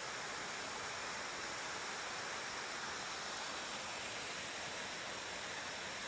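Steady rush of a waterfall more than ten metres tall: an even hiss of falling water with no break or change.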